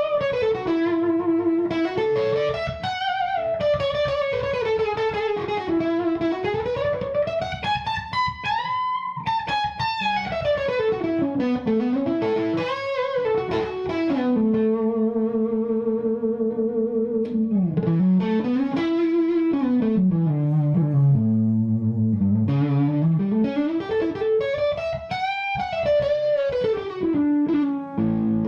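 Electric guitar lead from a Gibson Les Paul through a JMI Vox AC30/6 Top Boost amplifier with Celestion Blue Alnico speakers, pushed by an overdrive pedal into long, singing held notes. The tone sweeps slowly up and down over the held notes.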